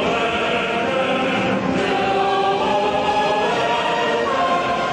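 Choral music: voices singing long held chords, which change about two seconds in and again near the end.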